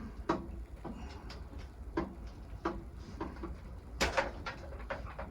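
Light irregular clicks and scrapes, with a sharper one about four seconds in, from electrical wires being twisted together by hand during a water heater hookup.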